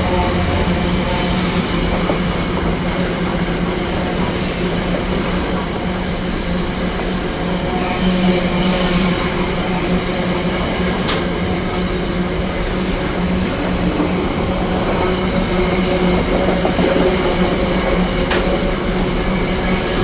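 Long, heavily loaded freight train rolling past: a steady rumble of wagon wheels on the rails with a low drone, broken by a few sharp clanks.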